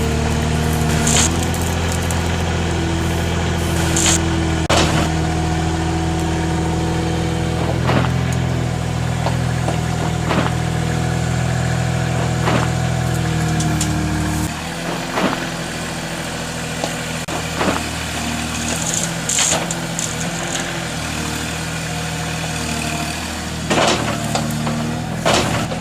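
Heavy truck engine idling steadily, with scattered clicks and knocks over it; about halfway through, the engine's deep hum drops away and a quieter rumble with more knocks carries on.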